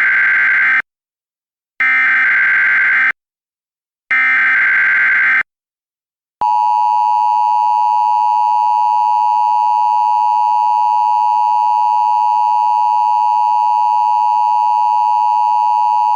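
Emergency Alert System tones. Three short bursts of digital SAME header data, about a second apart, are followed by the steady EAS two-tone attention signal, held for about ten seconds until it cuts off suddenly at the very end. Together they mark the start of a new emergency alert.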